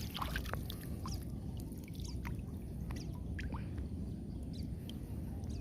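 Small splashes and rustles of water and rice stems as a hooked catfish is worked free from a line in a flooded rice field, over a steady low rumble.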